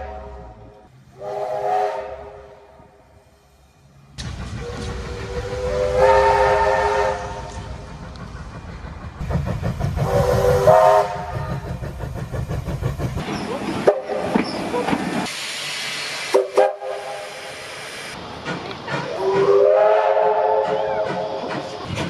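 A string of NSWR locomotive whistle blasts cut together: about four chords of several notes at once, each held a second or two, some sliding up in pitch as they open. A train rumbles along under the middle blasts.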